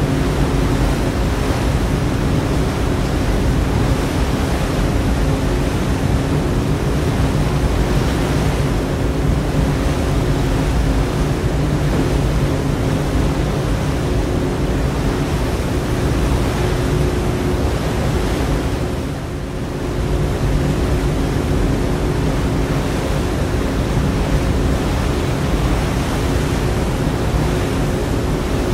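Steady drone of a ferry's engines, with a few held low hum tones under a wash of wind and rushing water. The sound dips briefly about two-thirds of the way through, then carries on.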